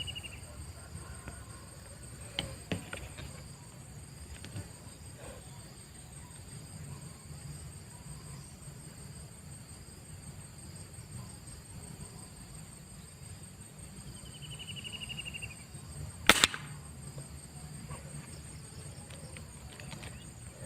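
A single sharp air rifle shot about sixteen seconds in, by far the loudest sound, over a steady high buzz of insects. A short descending bird trill comes just before the shot, and a few faint clicks sound early on.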